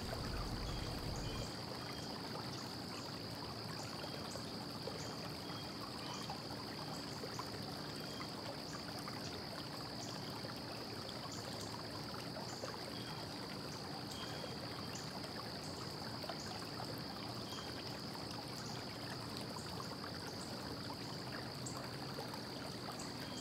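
Faint steady hiss of background room noise with a thin, steady high-pitched whine and a few very faint ticks; no distinct work sounds stand out.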